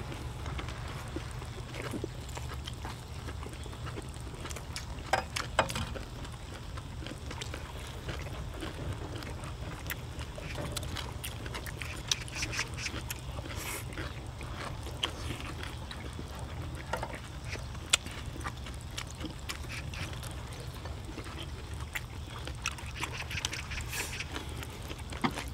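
People eating: chewing and lip-smacking with scattered short clicks, over a steady low rumble.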